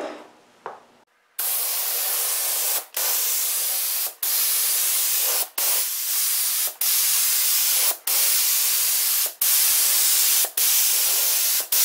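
Gravity-feed paint spray gun hissing as it sprays a coat of clear, in repeated passes with the trigger let off briefly about every second and a half. The spraying starts about a second and a half in.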